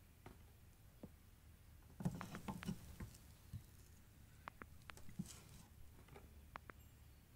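Kitchen knife cutting raw potato into chunks: faint scattered clicks and taps of the blade and pieces on a wooden cutting board, a small cluster about two seconds in and single sharp ticks later.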